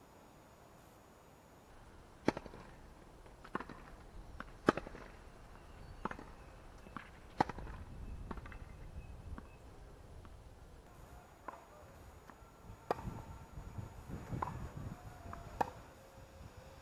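Tennis balls struck by rackets and bouncing on a hard court during rallies: a string of sharp pops, irregularly about a second or so apart, starting about two seconds in.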